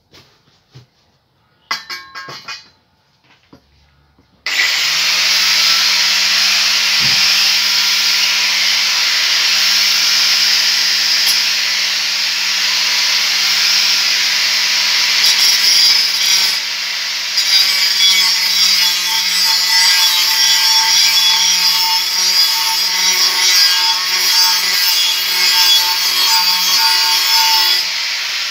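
Handheld angle grinder switched on about four and a half seconds in, spinning up and then grinding the steel hoe blade continuously, with a brief easing off partway through. A few light knocks come before it starts.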